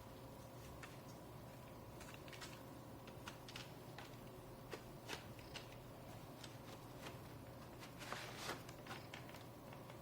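Faint small clicks and scrapes of a slim HDD caddy being handled and slid into a laptop's optical drive bay, with a longer, louder scrape about eight seconds in, over a faint steady hum.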